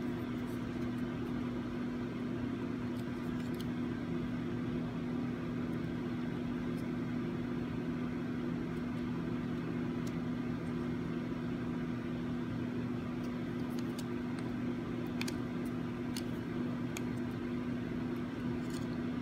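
Steady low machine hum from the room, with a few faint, light plastic clicks as the dash camera's plastic case is pried apart at its snaps.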